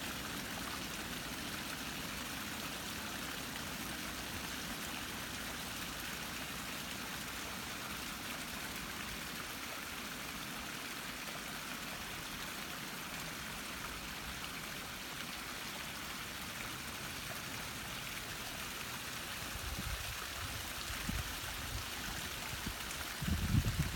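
Steady rushing of running water. In the last few seconds, low rumbling bumps hit the microphone.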